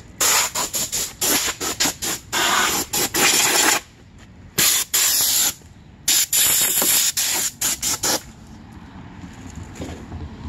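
Compressed-air blowgun on a shop air hose giving a series of hissing blasts: quick short puffs and longer bursts of a second or so, stopping about eight seconds in.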